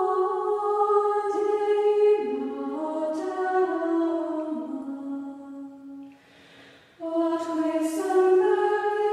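Unaccompanied choir singing slow, long-held notes. The voices fade to a short lull about six seconds in, then come back in.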